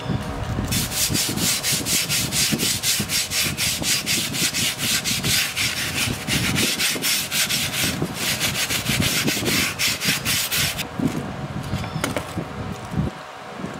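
A sponge scrubbing a rusty steel machete blade wet with foaming degreaser: quick, regular back-and-forth strokes. It works the rust and grime loose, and the scrubbing stops about eleven seconds in.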